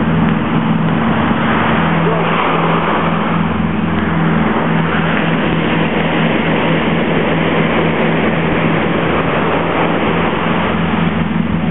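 Heavy surf breaking and washing up a sandy beach in rough post-hurricane seas: a loud, continuous rush of waves with a low rumble beneath, swelling about two seconds in.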